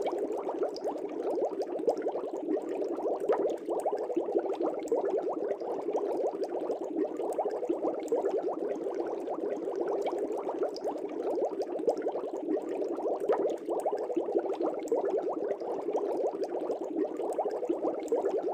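Aquarium air bubbles bubbling steadily: an even, dense stream of small pops in the water.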